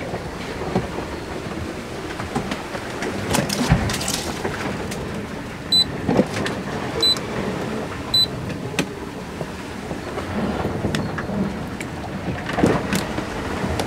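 A yacht under way at sea: a steady rush of water and wind with occasional knocks from the hull and gear. Three short electronic beeps sound about a second apart in the middle.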